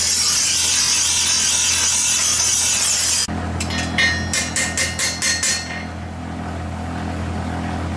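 Steel katana blade held against a spinning bench grinder wheel, a steady high hiss of grinding that cuts off about three seconds in. A hammer then strikes the blade on an anvil in a quick run of about ten ringing blows, some five a second, followed by a low steady hum.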